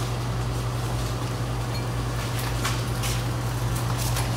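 A steady low mechanical hum, with a few faint clicks in the second half.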